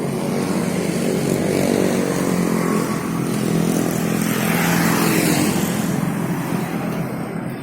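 Road traffic: a vehicle engine running steadily under a hiss of traffic noise, which swells louder about halfway through as traffic passes close.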